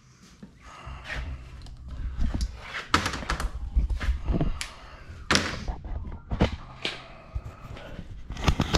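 A series of irregular knocks and thunks over a low rumble, the handling noise of the camera being moved and repositioned.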